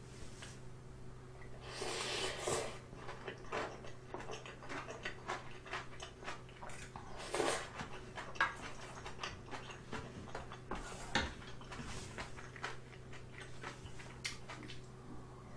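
Close-miked eating of ramen: wet chewing and lip smacks with a few noodle slurps, and a spoon clinking and scraping against a brass pot and bowl.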